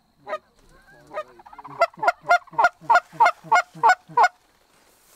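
Handheld goose call blown by a hunter: a few scattered notes and a low murmuring, then a quick run of about nine sharp honks and clucks, roughly three a second, that stops abruptly.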